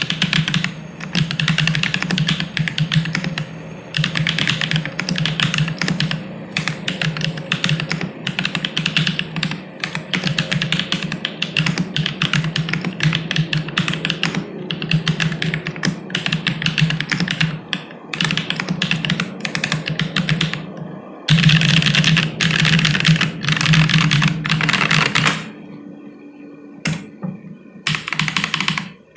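Fast typing on a Synthesis60 mechanical keyboard with lubed Holy Panda tactile switches in an FR4 plate and ABS Cherry-profile keycaps: a dense run of keystroke clacks. The typing pauses for a few seconds near the end.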